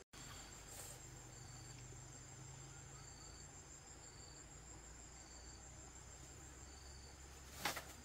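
Faint insect chirping, typical of crickets: short high chirps repeating about once a second over a steady high buzz. A single sharp click comes near the end.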